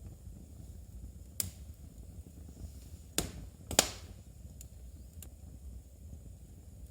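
Wood fire burning in a fireplace: a low steady rumble with a few sharp, irregular crackling pops, the loudest a little before the middle.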